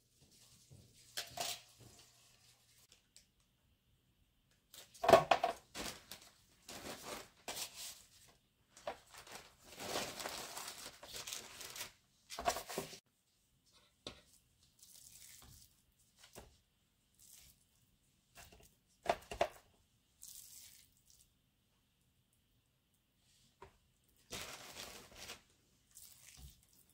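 Irregular bursts of paper and plastic crinkling and rustling, with a few sharper knocks, as parchment paper and tortillas are handled on a metal baking sheet. Quieter, scattered scraping of a spoon in a plastic bowl of ground-meat filling follows.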